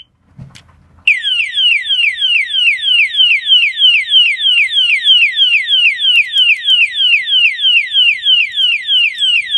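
Padlock's built-in alarm siren sounding a loud, fast-repeating falling whoop, about three sweeps a second, starting about a second in. It is set off by the key being inserted the reverse way.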